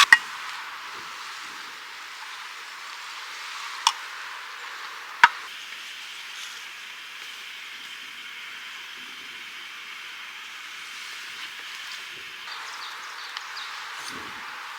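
Three sharp knocks or clicks, one at the start, then two more about four and five seconds in, over a steady hiss of outdoor background noise.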